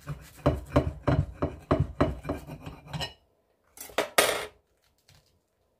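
Knife sawing through a toasted ham, egg and cheese sandwich, about three quick scraping strokes a second, stopping about three seconds in. About a second later come two short clatters of cutlery against a dish.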